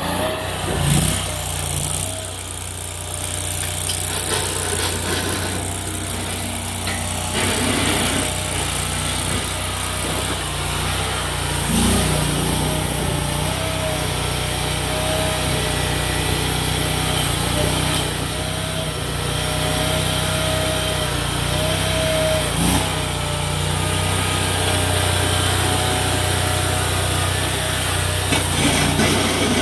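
Small engine of a mini stand-on track loader running steadily, with a wavering whine above it and a few short knocks.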